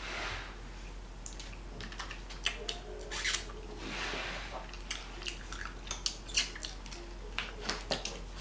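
Close-miked eating sounds: chewing with irregular sharp clicks, and a few brief rustles of food wrappers.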